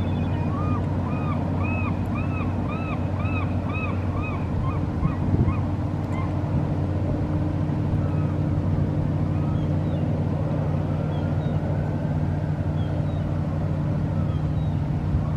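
Boat engine running with a steady low hum, while in the first few seconds a gull gives a rapid series of about ten yelping calls, roughly three a second.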